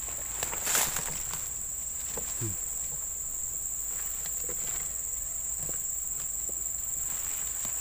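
Steady high-pitched drone of insects in tropical scrub, with footsteps and the rustle of grass and leaves as someone pushes through undergrowth; the loudest rustle comes a little under a second in.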